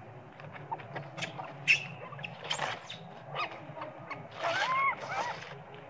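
Baby long-tailed macaque crying in short squealing calls that bend up and down in pitch, strongest between about four and a half and five seconds in. Scattered sharp clicks and rustles come with them, the loudest a single sharp click a little under two seconds in.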